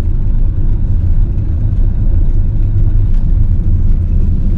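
Motorhome driving on a motorway, a steady low rumble of engine and road noise.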